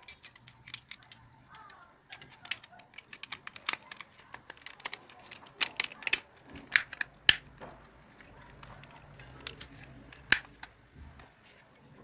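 Rapid plastic clicks and snaps of a TV remote control's plastic case being fitted and pressed together by hand, with a few louder snaps a little past halfway and one about ten seconds in.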